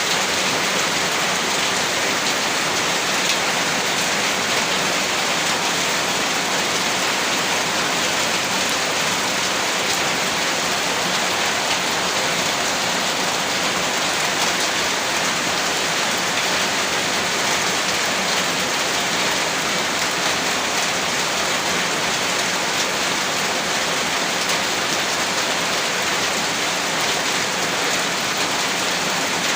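Heavy rain falling steadily, an even hiss of rain on surfaces with no gaps or changes.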